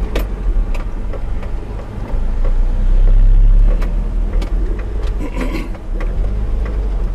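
Car driving slowly, heard from inside the cabin: a steady low engine and road rumble that swells louder for a second or two near the middle, with scattered short clicks and knocks from bumps and rattles.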